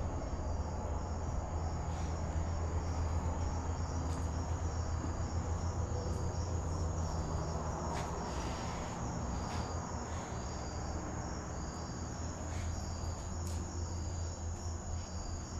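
Crickets chirping steadily in a high, pulsing trill, over a low rumble and a few faint clicks.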